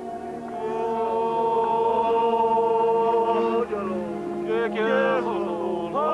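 Voices chanting in long held notes over a low steady drone, with sliding, swooping voices about four and a half seconds in.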